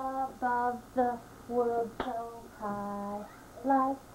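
A woman and a young child singing together in short notes, each held at a steady pitch, with a sharp knock about two seconds in.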